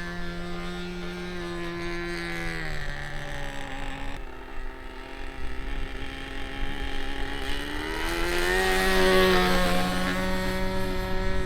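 SH GF6 .37 glow-ignition model airplane engine running at high revs. It is throttled back about two and a half seconds in, then opened up again near the end, getting loudest around nine seconds in.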